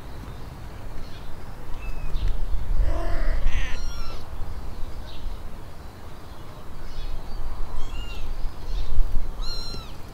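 A few short, arching animal calls, one around three seconds in and a clearer, higher one near the end, over a steady low rumble.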